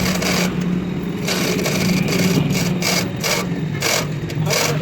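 Rasping hand-tool strokes on metal, about two a second and uneven, over a steady low machine hum.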